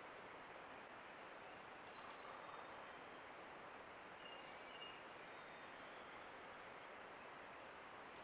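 Faint, steady rush of flowing creek water, with a few brief, faint high bird chirps over it.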